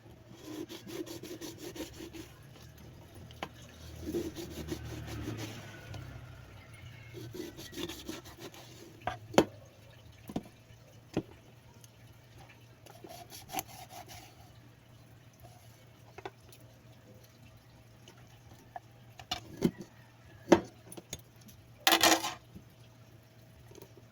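Knife scraping a pompano in quick rhythmic strokes to clean it, with scattered sharp knocks and a short rushing noise near the end.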